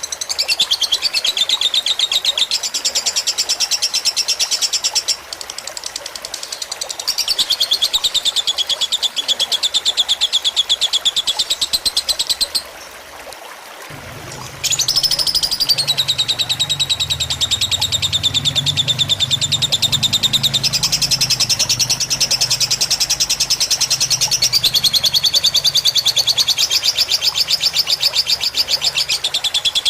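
Lovebird singing long, fast chattering trills, each running several seconds with short breaks and one longer pause about halfway through, over steadily trickling water.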